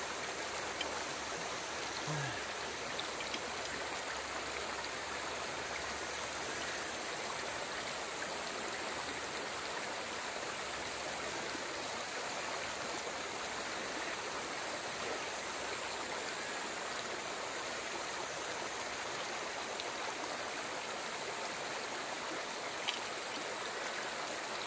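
Steady rush of flowing river water, with one small tick near the end.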